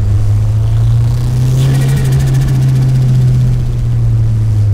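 Nissan S15 Silvia's turbocharged SR20 four-cylinder running steadily at low revs while driving, heard from inside the cabin as a loud low drone. A brief rushing noise rises and fades in the middle.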